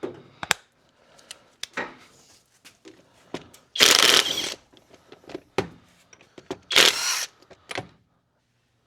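Tool work on a truck wheel: scattered clicks and clatter of tools being handled, with two short, loud, noisy rattling bursts about four and seven seconds in.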